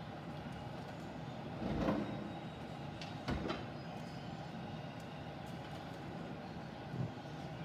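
Steady low rumble with cooking pots being handled: a clunk about two seconds in, another about three and a half seconds in, and a lighter knock near the end.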